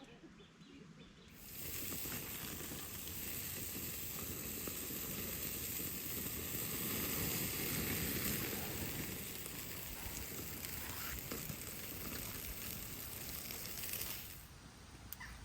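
Wood fire burning in a stainless-steel Bushbox XL stove, kindled with fat wood and feather sticks: a steady hiss that starts about a second in and stops abruptly near the end.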